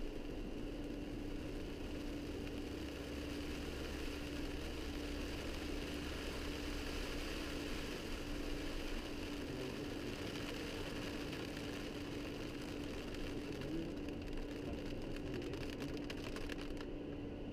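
Steady cockpit noise of a private jet in descent: a constant rush of airflow with an even hum underneath. Near the end a run of faint light clicks rides on top.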